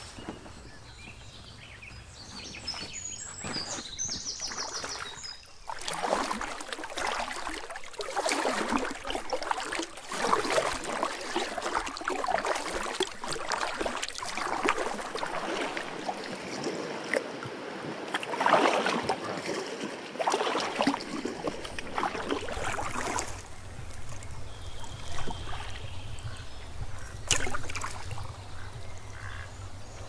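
Water splashing and sloshing in strokes about once a second, from about six seconds in to about twenty-three seconds in. A bird chirps briefly before the splashing starts.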